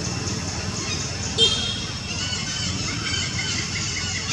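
Monkey giving a short, sharp high-pitched squeal about a second and a half in, with weaker squealing calls a moment later. Under it run a steady low rumble and a faint chirping repeated several times a second.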